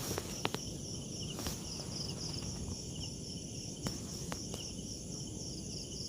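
Night crickets and other insects chirping steadily in several high pitches, with a few faint clicks.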